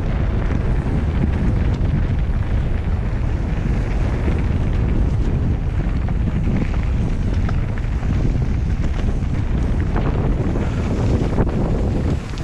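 Wind rumbling steadily on the microphone of a camera riding along on a mountain bike, with a few light clicks and rattles.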